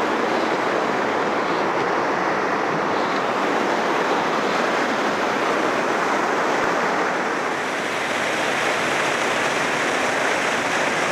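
Fast mountain stream rushing and splashing over rocks: a steady, even rush of water.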